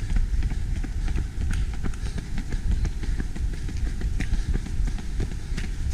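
Quick, steady running footsteps slapping on an asphalt road, heard over a low rumble from the moving camera.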